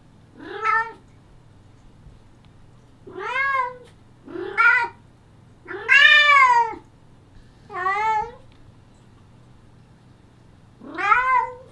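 An old black-and-white cat meowing loudly: six long, drawn-out meows spread over about eleven seconds, each rising and then falling in pitch, the longest and loudest lasting about a second midway.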